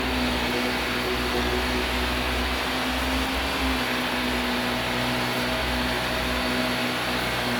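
Vacuum cleaner running steadily: a constant motor hum with a rush of air.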